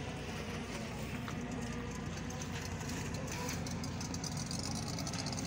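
A boat's engine running steadily with a low hum, over a wash of wind and water noise.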